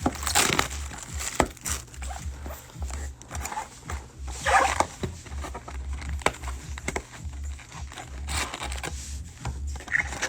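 Trading card packs and boxes being handled and opened: wrappers crinkling and cards and cardboard scraping and clicking, in short irregular spells of rustling.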